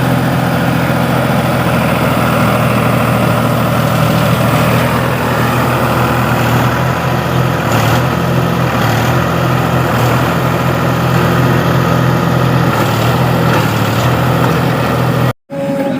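Heavy diesel machinery engine running steadily at an even pitch, cutting off abruptly near the end.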